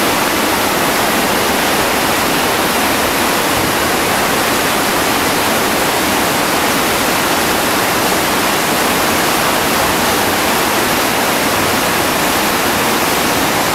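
Whitewater rapid rushing, a loud, steady roar of churning water over rocks.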